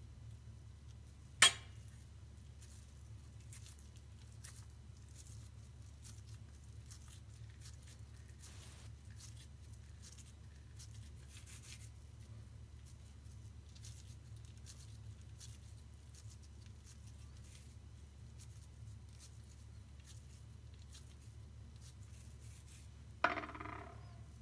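Faint handling of soft bulgur dough as a stuffed içli köfte is filled and shaped by hand, over a low steady hum. A sharp click sounds about a second and a half in, and near the end a metal spoon clinks against the stainless steel pot and rings briefly.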